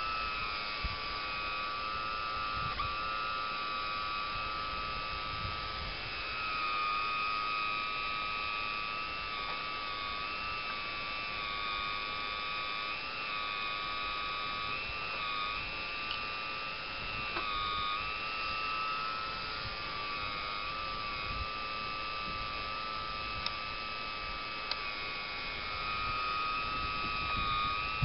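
Small electric motors of a radio-controlled model CAT 345 excavator with a log grapple whining steadily as it lifts and swings a log, the pitch shifting slightly now and then with the load, with a few faint clicks.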